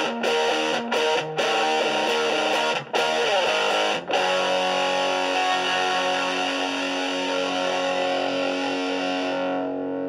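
Electric guitar played through an Orange Crush Mini amplifier, picked up by an iPad's built-in microphone: a few chords broken by brief stops, then a chord struck about four seconds in and left ringing, fading away at the end.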